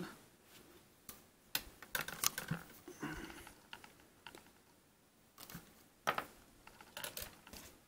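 Light, scattered clicks and taps of small plastic action-figure accessories being handled and set down on a tabletop, as a toy shield is put down among the other pieces.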